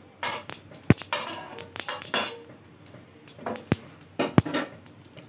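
Spatula stirring whole spices in hot oil in a frying pan: scraping strokes through the first couple of seconds, with a few sharp clicks of the spatula against the pan and the metal stovetop.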